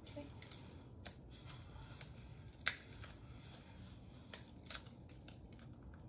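Paper release liner being peeled off the sticky back of an ostomy skin-barrier base plate by gloved hands: faint, with a handful of short, sharp crackles, the loudest a little under three seconds in.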